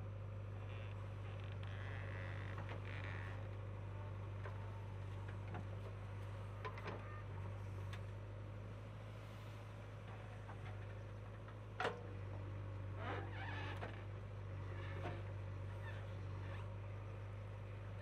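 JCB 3DX backhoe loader's diesel engine running with a steady low drone while the backhoe digs, with a few short knocks from the arm and bucket, the sharpest about two-thirds of the way through.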